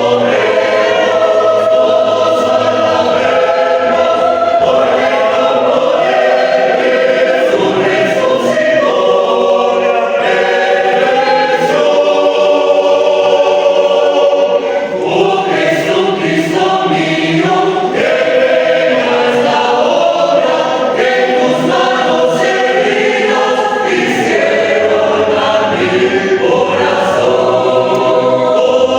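A choir singing: several voices holding long chords that change every second or two.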